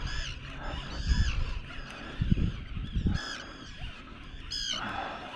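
Birds giving repeated short honking calls, each call arching up and down in pitch, several times a second apart, with low thumps and rumble on the microphone.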